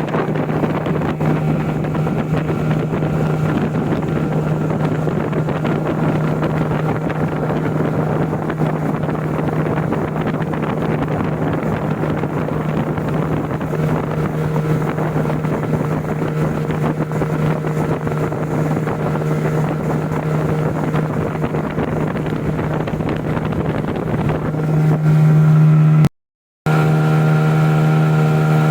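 Small boat's motor running at a steady pitch under way, with wind on the microphone. It grows louder shortly before the end, drops out for a moment, then carries on.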